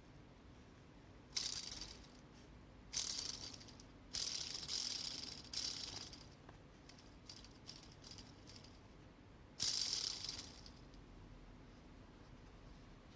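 Damaged crankshaft ball bearing turning with a gritty, rasping rattle (jari-jari) in several short spells, each starting sharply and fading over about a second. The inner race has flaked under axial load, which the owner suspects came from poor lubrication.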